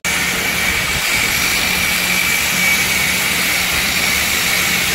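Power sanders running steadily against a bare metal truck sleeper: a continuous whirring hiss with a steady whine.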